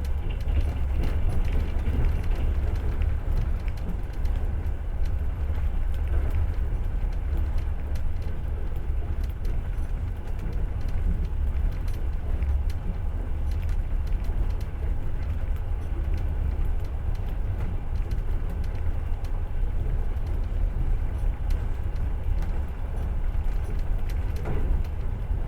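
Passenger train under way, heard from inside the carriage: a steady low rumble of the wheels running on the rails.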